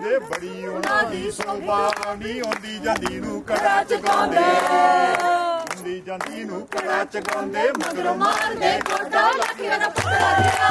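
A mixed group of men and women singing Punjabi boliyan together, keeping time with handclaps, with a long held note about four seconds in.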